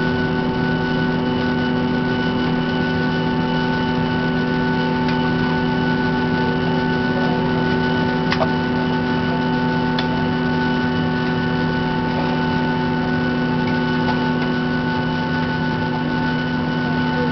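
Airliner engines heard from inside the passenger cabin while the aircraft taxis: a steady drone carrying several even, unchanging tones, with a couple of faint clicks about eight and ten seconds in.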